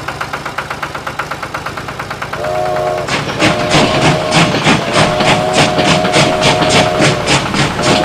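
Small engine chugging steadily, then about two and a half seconds in a train whistle sounds, repeating several times, over a fast clickety-clack of train wheels on rails.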